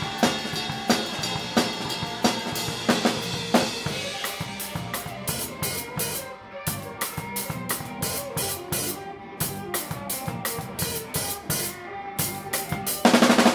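Rock band playing live, the drum kit loudest, with electric guitar and bass under it. About four seconds in, the drumming thins to a steady cymbal beat over held guitar notes, and a loud full-band hit comes near the end.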